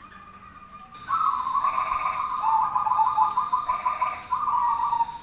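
Zebra doves (perkutut) cooing. A faint call is followed, about a second in, by a loud trilling coo phrase of many rapid notes that lasts about four seconds.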